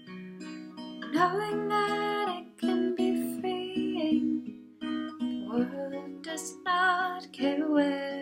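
A song: a singing voice holds long notes over acoustic guitar, in two phrases.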